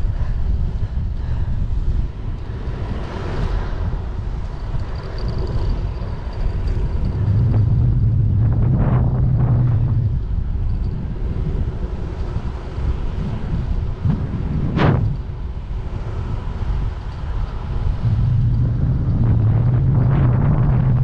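Riding noise from a bicycle towing a loaded trailer on the move: steady low rumble and wind over the microphone. A louder low hum comes in twice, about seven seconds in and again near the end. There is one brief sharp sound about fifteen seconds in.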